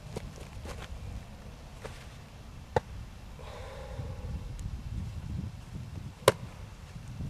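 Wind rumbling on the microphone, with two sharp knocks about three and a half seconds apart, the second louder.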